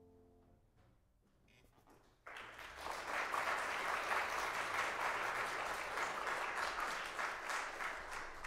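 A grand piano's last chord dies away, then a little over two seconds in an audience breaks into applause, which goes on steadily and eases slightly near the end.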